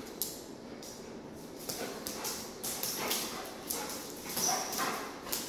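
A dog's claws clicking and skittering on a tile floor in quick, irregular taps as it scrambles, turns and pounces.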